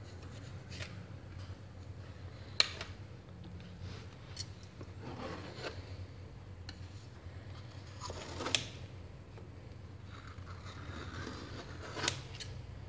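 A knife blade drawn around the inside walls of a square stainless-steel cake frame to loosen the set cake, scraping faintly along the metal. There are a few sharp clicks of the blade against the frame, the clearest about a third of the way in and near the end.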